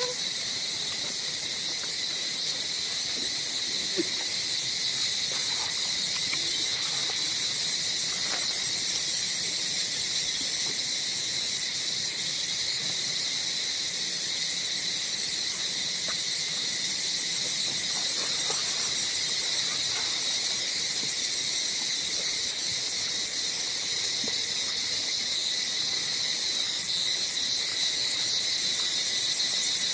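Steady, high-pitched drone of insects calling in chorus, unbroken throughout, with a faint sharp tap about four seconds in.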